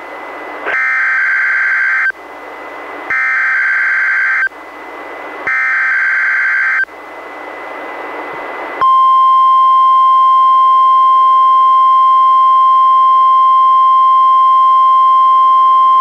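NOAA Weather Radio alert sequence received on a Reecom R-1630 weather radio. Three short bursts of SAME digital header data, a harsh warbling buzz, play with radio hiss between them. About nine seconds in, the steady warning alarm tone begins and holds. The sequence is sounded as the required weekly test of the warning alarm.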